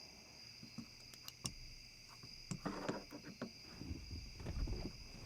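Steady night chorus of crickets, a continuous high-pitched trill, faint throughout. Scattered faint clicks and low rustling come in from about halfway through.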